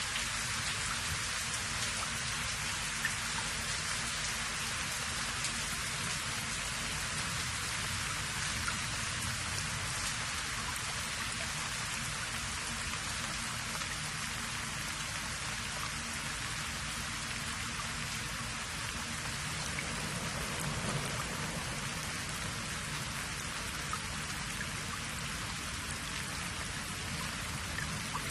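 Steady rain-like hiss with no distinct events.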